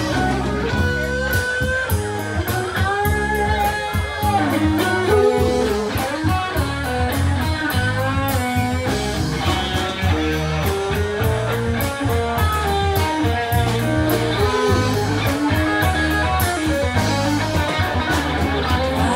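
Live blues-rock band playing an instrumental passage with no vocals: electric guitar carries the melody, with bending notes, over bass guitar and a drum kit keeping a steady beat on the cymbals.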